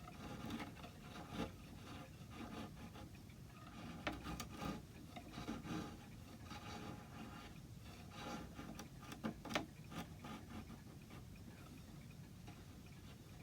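Hand tools working wood: irregular scraping and rubbing, broken by light, sharp taps and clicks, a few of them louder about two-thirds of the way through.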